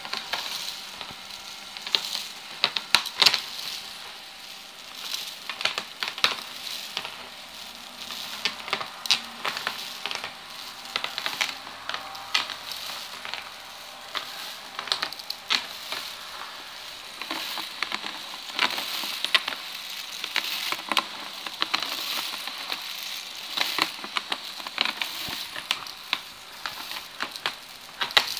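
DIY maggot sifter prop in action: a mass of small dry pieces rattling and skittering against each other and the sifter, making a steady dense crackle with louder clicks scattered irregularly throughout.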